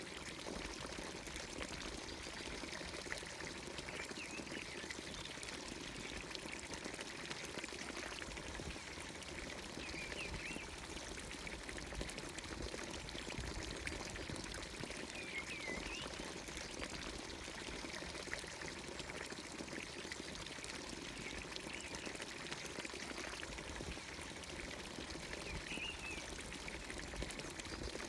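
Water pouring steadily from the spout of a traditional Anatolian village fountain, with a few short bird chirps now and then.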